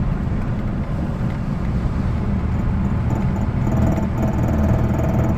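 Audi 80 B3 running with a steady low rumble; about three seconds in a faint rapid ticking joins it. The ticking fits the knock the owner hears at certain revs and suspects comes from the instrument cluster or a relay rather than the engine.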